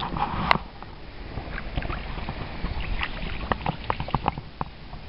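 Light water sloshing and dripping with scattered small taps, and one sharp knock about half a second in, as a hand handles the camera.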